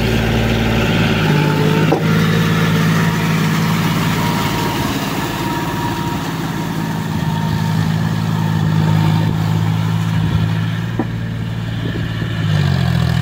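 John Deere 5042D tractor's three-cylinder diesel engine running steadily as the cage-wheeled tractor works through flooded paddy mud. Its pitch steps up about a second in and shifts again near the end.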